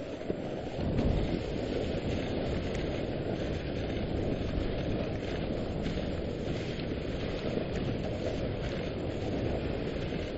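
Steady rushing noise of a dog sled running over a snow trail: runners sliding on snow with wind on the microphone, briefly louder about a second in.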